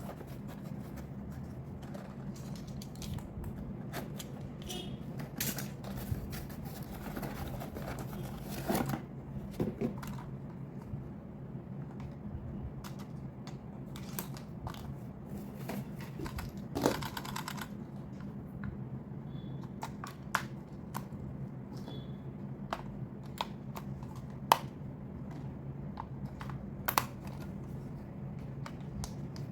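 Hands handling plastic toys and packaging: irregular light clicks, taps and brief rustles, with a few sharper clicks, over a steady low hum.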